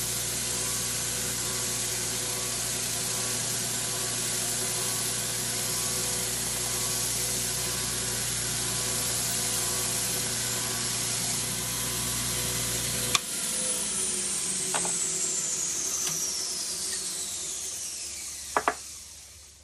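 Belt sander running while a brass trumpet piston is held against the belt to grind off its excess legs. About 13 seconds in it is switched off with a click, and the motor and belt wind down, their whine falling steadily in pitch over several seconds.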